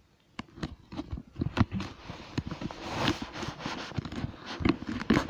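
Irregular clicks, scrapes and rustling right at the microphone: a phone rubbing against a cat's fur and the blanket beneath it. The rustling is thickest about three seconds in.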